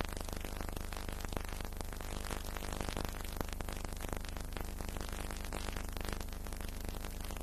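Steady hiss and low mains hum, with constant faint crackle: the background noise of an old film soundtrack, with no other sound clearly standing out.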